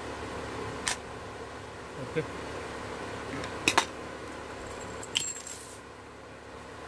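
A few sharp metallic clicks and a light jangle from a small brass padlock being handled and lifted off a concrete floor. The loudest is a double click about two-thirds of the way through a handful of separate knocks, followed by a short cluster of clicks with a thin high ring.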